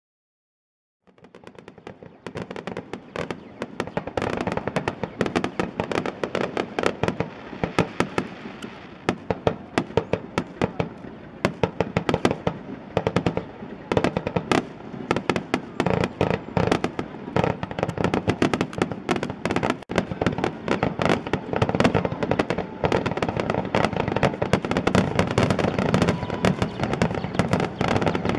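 Fireworks display: a dense, continuous barrage of bangs and crackling from bursting shells, starting suddenly about a second in.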